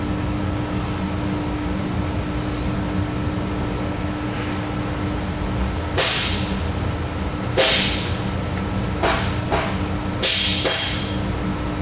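Steady machine hum, with about six sharp, hissing metallic clanks from the second half on as tools are handled at the lathe's tool post.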